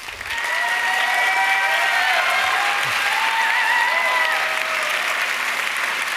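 Audience applauding, steady clapping from a large crowd.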